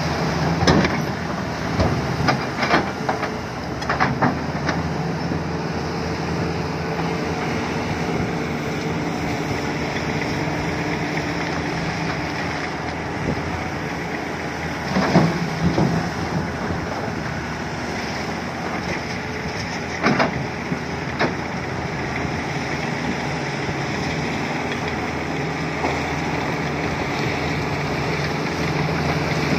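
Volvo 480 excavator's diesel engine running steadily under load. Several loud bursts of rock clattering come over it as the bucket loads and dumps into a dump truck's bed, the loudest about halfway through.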